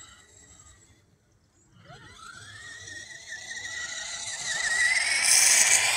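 Electric motor and gears of a radio-controlled off-road truck whining as it drives. The whine starts about two seconds in with a quick rise in pitch, then climbs slowly with a rasp that grows much louder toward the end.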